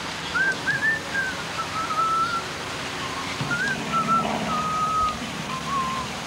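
A person whistling a slow tune, a string of short sliding notes and a few longer held ones.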